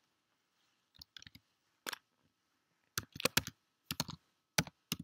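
Irregular sharp clicks and knocks close to the microphone, a few at first and then a denser, louder cluster from about three seconds in: the recording device being handled to stop the recording.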